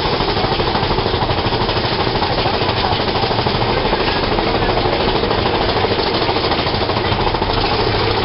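Big Thunder Mountain Railroad mine-train coaster rattling steadily along its track, a fast, dense clatter with no break.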